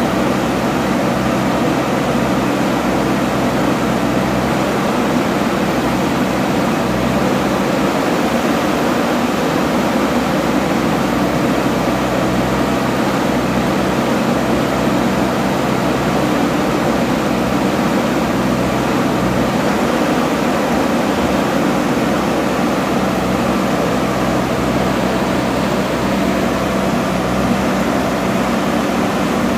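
JCB backhoe loader's diesel engine running steadily under a dense, even rush of noise.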